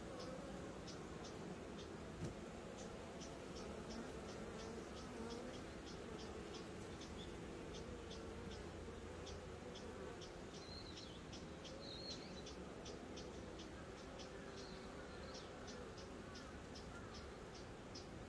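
Faint buzzing of honeybees flying around their hive, with an insect chirping steadily and high above it, about three chirps a second.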